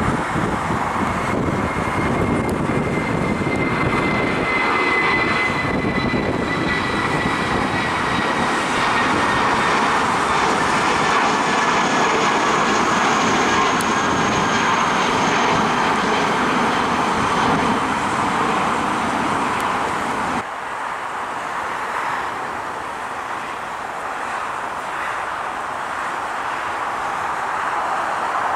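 Jet noise from a JetBlue Airbus A320-200's IAE V2500 turbofans at climb power just after takeoff: a steady rumble with engine whine tones that slowly fall in pitch as the plane passes. About twenty seconds in, it cuts to the quieter jet noise of another airliner on approach, which grows louder near the end.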